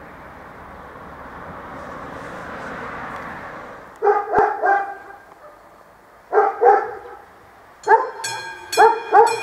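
Dogs barking in short runs of two or three barks, about four, six and eight seconds in. Near the end, the bell of an AŽD 71 level-crossing warning signal starts ringing in steady strokes, two or three a second, warning of an approaching train. Before the barking, a rushing noise swells and then cuts off.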